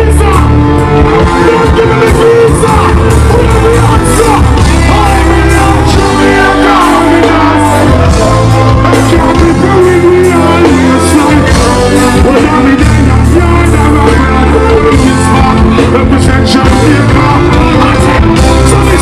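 Loud live dancehall music: a voice singing over a heavy, pulsing bass line.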